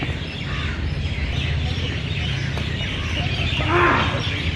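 Birds chattering and calling from the trees, with a burst of rising-and-falling calls near the end, over a steady low hum. A badminton racket strikes the shuttlecock faintly about two and a half seconds in.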